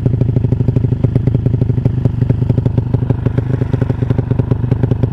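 Honda Supra's single-cylinder four-stroke engine, bored up to 200cc, idling through a CJDW aftermarket exhaust. The exhaust gives a steady, even beat of about ten pulses a second.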